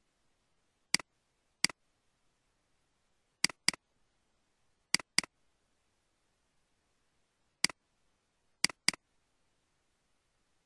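Computer mouse button clicking, a mix of single clicks and quick double-clicks, about nine clicks in all with pauses of a second or two between them.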